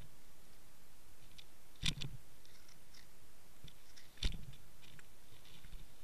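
Two sharp clicks about two and a half seconds apart over a faint steady hiss, with a few fainter ticks between them.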